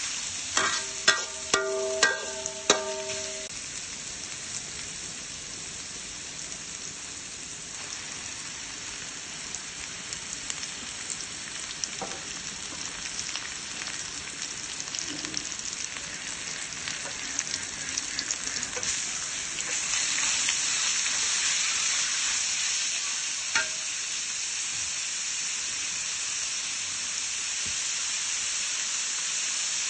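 Julienned ginger and sliced beef sizzling in an aluminium wok while a metal spoon stirs and scrapes them. In the first few seconds the spoon knocks against the wok several times and the pan rings. About two-thirds of the way through, the sizzle grows louder.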